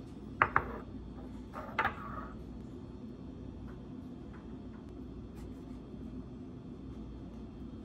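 Ceramic bowls set down on a stone countertop: two sharp knocks about half a second in, then another clatter with a brief ring near two seconds in. After that, a steady low hum with a few faint clicks.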